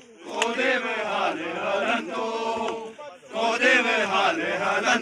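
A group of men chanting together in unison, in repeated sung phrases, with a short break about three seconds in.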